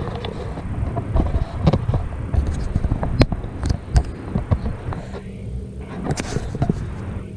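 Handling noise of a camera being set up: scattered knocks, clicks and rubbing on the microphone, giving way about five seconds in to a quieter steady low hum.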